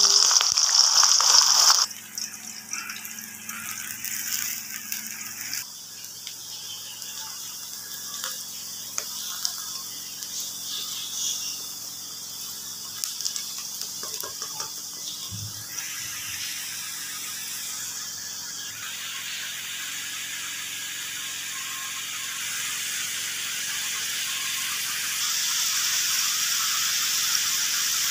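Sliced onions hitting hot oil in a wok, with a loud sizzle for about two seconds, then frying with a steadier, quieter sizzle that grows louder again near the end.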